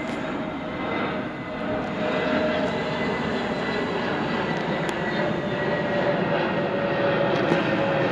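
Jet airliner passing overhead: steady jet engine noise that grows a little louder, with a faint whine slowly dropping in pitch.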